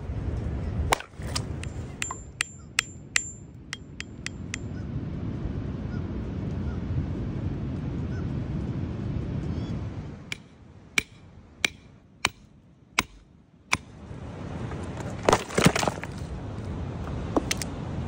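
Hammer tapping on rock nodules: a string of sharp, irregular strikes in several bursts, over a low background rumble.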